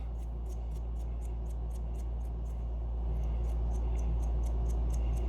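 A Scotch-Brite pad scrubbing small metal acorn nuts to polish off oxidation, in quick even rubbing strokes about five a second, over a steady low hum.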